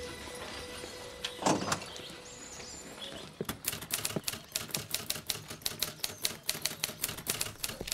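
A thump about a second and a half in, then typewriter keys clacking in a fast, steady run of several strokes a second from about three and a half seconds in.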